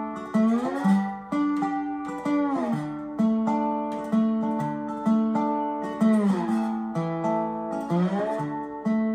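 Guitar played with a slide: picked chords over an alternating bass, with the slide gliding the whole chord up in pitch and back down several times.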